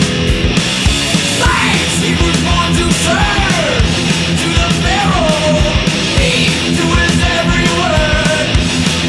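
Heavy metal music with pounding drums and sustained guitar. A shouted, singing vocal comes in about a second and a half in.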